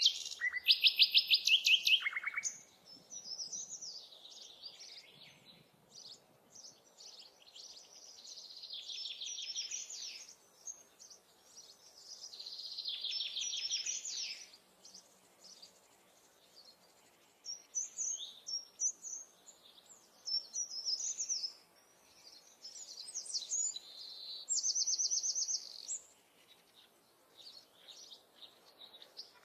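Songbirds singing: a run of rapid, high trills and twittering phrases with short gaps between them, the loudest trill right at the start.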